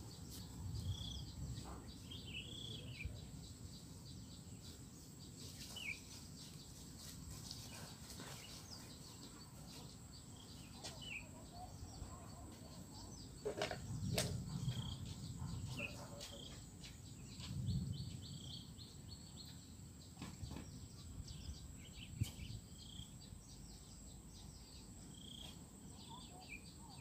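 Faint outdoor ambience with small birds chirping now and then in short, repeated calls. Under it a low rumble swells a few times, and a faint steady high-pitched tone runs beneath.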